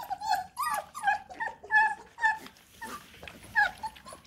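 Bluetick coonhound puppies whimpering in short squeaky bursts, several a second and thinning out toward the end, with soft clicks as they eat from a metal dish.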